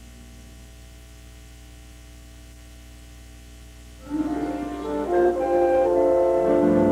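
A low steady hum for about four seconds, then opening theme music starts suddenly: sustained keyboard chords that swell and keep going.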